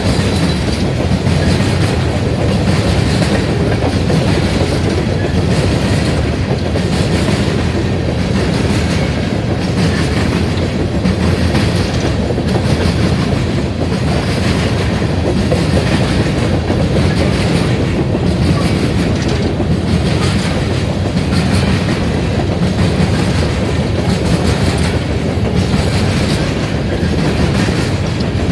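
Empty coal train's open-top steel coal cars rolling past: a steady rumble and rattle, with the wheels clacking over the track in a regular rhythm.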